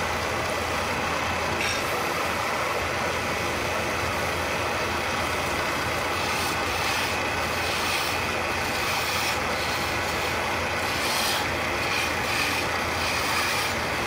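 Wood lathe running steadily while a hand-held chisel cuts into the spinning wooden baluster, the cutting hiss swelling briefly a few times.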